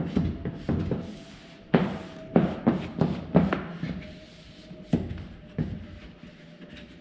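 Vinyl graphic being worked onto a race car body panel by hand: a run of quick, sharp squeegee rubs and taps, several in a row about two seconds in and two more near five seconds.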